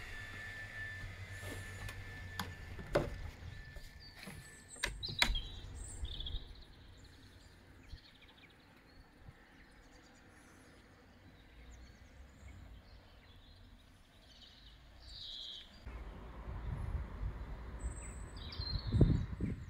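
Small birds chirping outdoors in short scattered calls. A few sharp clicks come in the first five seconds or so, and a low rumbling noise starts near the end.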